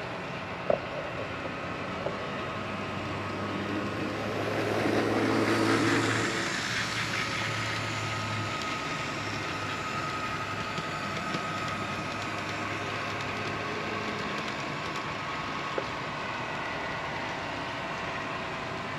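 HO scale model train running along the layout, its wheels and motor on the track growing louder to a peak about five or six seconds in as it passes close, then easing off, over a steady low room hum.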